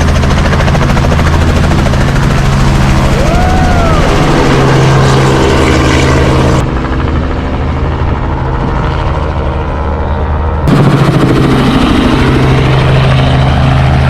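Tour helicopter running, a loud, steady drone of engine and rotor. It turns duller for about four seconds in the middle.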